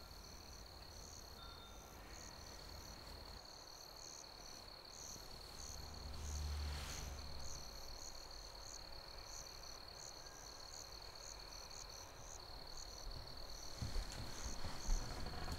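Faint night ambience of crickets: a steady high trill with chirps repeating at about two a second, over a low rumble. Near the end, bedding rustles as someone turns over on the bed.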